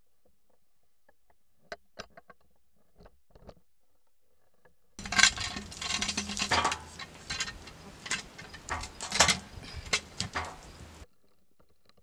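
A few faint clicks, then about five seconds in a run of sharp knocks and scraping as a cant hook bites into the bark of an ash log and the log is worked around on the sawmill bed. The noise cuts off abruptly about a second before the end.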